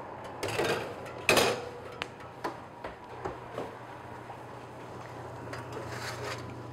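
Metal baking sheet scraping and clattering against a wire oven rack as it is slid in and out, the loudest clatter about a second in, then several light knocks. A low steady hum sets in about three seconds in.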